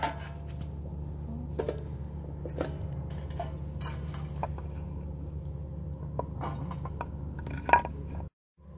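Stainless-steel camping pot and lid clinking and knocking as they are handled and set down, in a series of scattered sharp metallic clicks; the loudest knock comes near the end.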